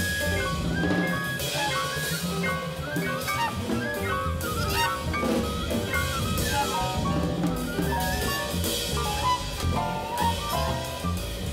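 A live jazz quintet plays, with saxophone and trumpet running quick melodic lines over piano, double bass and drum kit.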